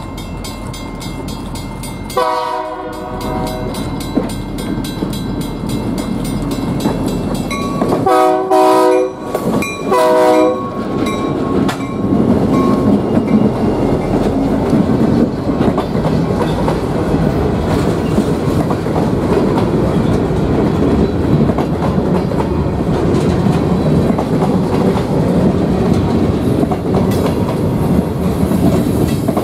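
Freight locomotive air horn blowing as the train approaches: a blast about two seconds in, then a longer one about eight seconds in and a short one about ten seconds in. The locomotives then pass close by, and covered hopper cars roll past with steady wheel-on-rail rumble and clickety-clack.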